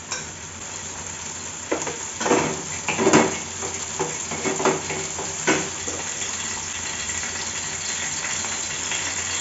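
Oil frying in a kadai on a gas stove, a steady sizzling hiss, with several short metal clinks of a utensil against the pan or bowl between about two and six seconds in.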